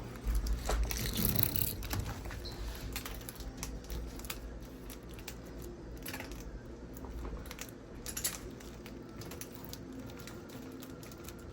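Scattered light clicks, taps and scratches of hands handling a microwave and picking at its thin plastic protective film, busiest in the first couple of seconds.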